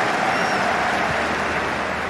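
A large football stadium crowd cheering a goal: a loud, dense, steady roar with no single voice standing out.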